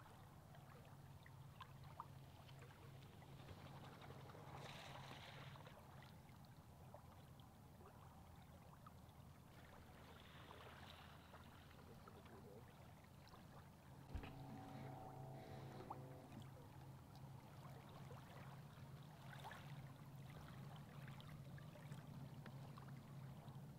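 Near silence: faint lapping of small waves on a lake, under a low steady hum, with a brief faint tone about fourteen seconds in.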